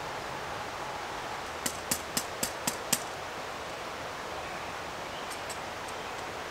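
A wooden-handled mallet driving a stake into the ground: six sharp strikes in quick succession, about four a second, starting a little under two seconds in, over a steady outdoor hiss.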